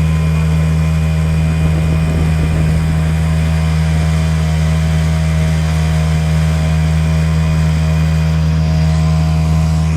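Yamaha 5 hp outboard motor running at a steady speed, its pitch holding constant.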